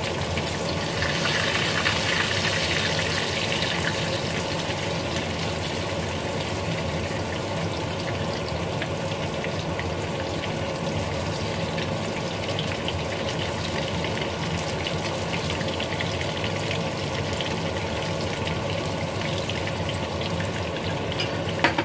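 Noodles sizzling in a frying pan while being stirred, a steady hiss throughout, with a sharp knock near the end.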